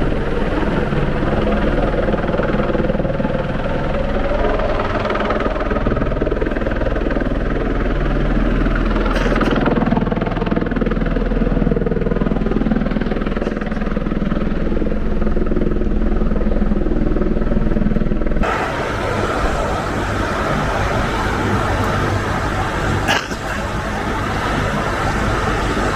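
Steady engine drone over rushing river water, changing abruptly about 18 seconds in.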